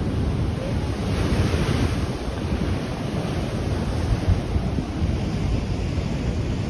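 Ocean surf washing against a rocky shore, with heavy wind buffeting the microphone; a louder rush of water comes about a second in and lasts about a second.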